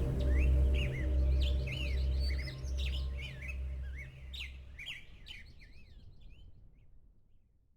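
Small birds chirping in quick rising and falling notes over a low, held drone with a slowly pulsing bass. Everything fades out gradually and is gone near the end.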